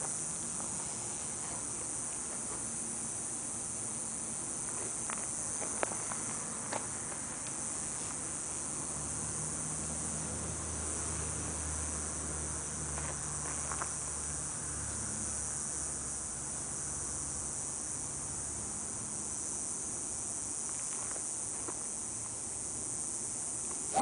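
Steady high-pitched insect drone throughout, with a few faint clicks and a low hum for several seconds in the middle. At the very end comes the sharp crack of a driver striking a golf ball off the tee, the loudest sound of all.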